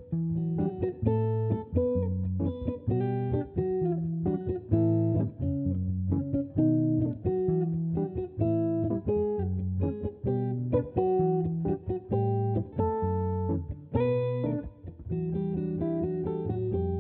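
Two overdubbed parts on a clean hollow-body Ibanez electric jazz guitar playing a bossa nova tune: plucked chords under a picked melody line, in a steady rhythm.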